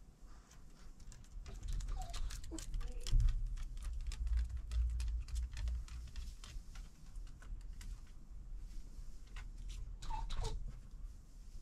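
Small dog's claws clicking and pattering on wooden deck boards as it walks across, with a few short high calls.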